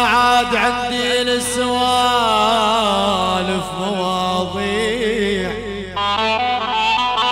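Live Middle Eastern dabke music: a long ornamented melodic line that bends and wavers in pitch, changing about six seconds in to quick stepped instrumental notes.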